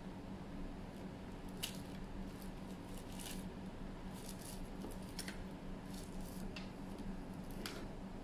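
Fingertips pressing and rubbing a tempered glass lens protector onto a GoPro Hero 8 Black's lens, giving a few faint, scratchy clicks and rasps, over a steady low hum.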